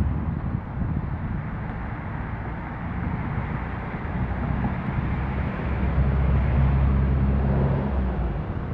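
Street traffic running steadily, with a vehicle's engine swelling as it passes, loudest about six to eight seconds in.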